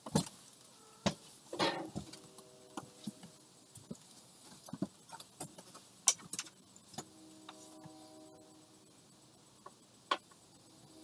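Scattered clicks, knocks and light rattles of small objects being handled and moved about as someone rummages through things, the sharpest knock about six seconds in. A faint steady tone comes in twice in the background.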